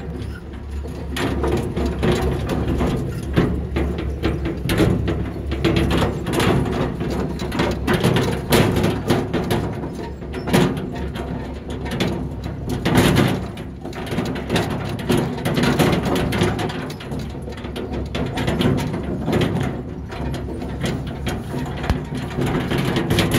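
Engine of a ride-on construction vehicle running steadily while it is driven, with frequent rattles and knocks from the machine.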